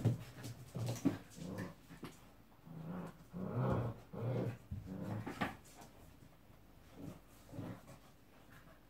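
Six-week-old Gordon setter puppies making small growls and whines as they play-fight. The calls come in short bursts, the longest and loudest about three to four seconds in, and die down near the end.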